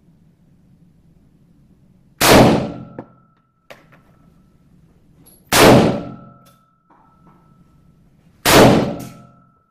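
Three handgun shots about three seconds apart in an indoor firing range, each with a short echoing tail. After each shot comes a brief metallic ring.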